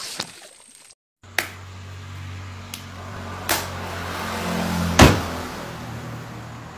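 A steady low hum with a few sharp clicks, the loudest about five seconds in.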